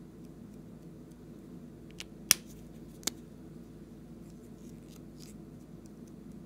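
Three sharp plastic clicks a second or so apart, the middle one loudest, with faint crackles later, from a plastic icing tube being handled and squeezed over slime in a glass bowl. A steady low hum lies underneath.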